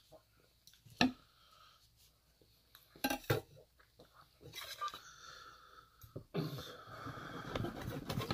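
Eating at a table: a few sharp clicks and faint mouth sounds, then from about six seconds in a table knife saws through steak, scraping steadily against the bottom of a stainless steel pan.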